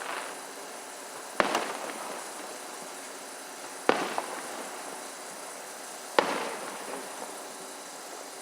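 Fireworks display: three sharp booms of aerial shells bursting, about two and a half seconds apart, each trailing off in a rolling echo.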